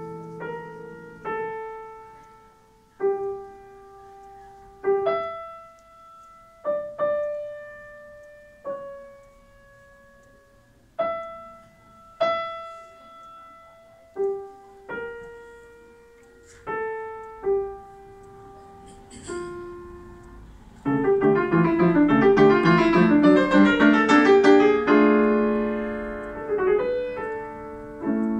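Grand piano played solo: slow, widely spaced notes and chords, each struck and left to ring away, then, about three quarters of the way in, a sudden loud, fast cascade of many notes lasting a few seconds, settling into held chords.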